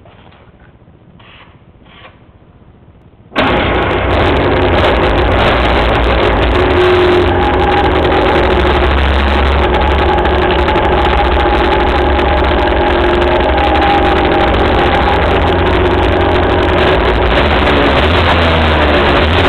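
A 1993 Cagiva Mito's 125 cc two-stroke single-cylinder engine, breathing through a Yamaha R6 silencer, starts abruptly about three seconds in and then runs steadily and loudly.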